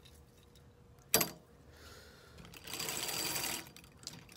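A sharp clack about a second in, then a rattling scrape lasting about a second: clothes hangers pushed along a metal clothing rack.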